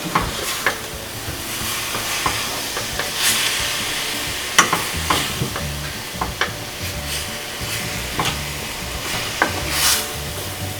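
Ground beef with garlic and ginger paste sizzling in a hot pan on medium-high heat as it browns, while a utensil stirs and breaks it up, scraping and clicking against the pan at irregular moments.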